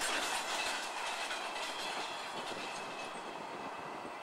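A long rake of freight hopper wagons rolling past, wheels clacking over the rail joints, the sound slowly fading.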